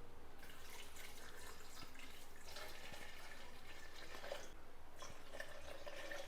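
Milk being poured into a mixer-grinder jar of chopped mango: a faint, steady liquid pour.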